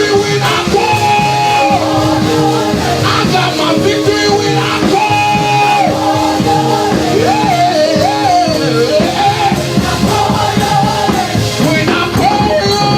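Upbeat church praise music: a sung melody with held, gliding notes over drums keeping a steady beat.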